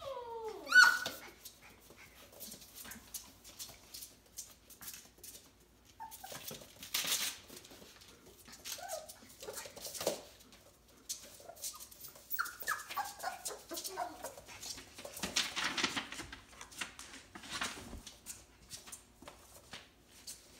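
Four-week-old F1B Bernedoodle puppies whimpering and yelping in short falling cries, the loudest about a second in, with scuffling and small clicks of play between them.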